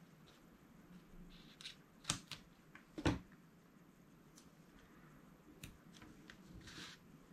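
Small craft scissors snipping twice, sharp clicks about two and three seconds in, with light handling of paper and card around them and a short rustle of paper near the end.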